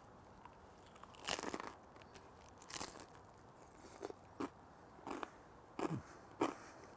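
A person biting into and chewing a piece of toasted baguette: faint crunches of the crisp bread, spaced irregularly about a second apart.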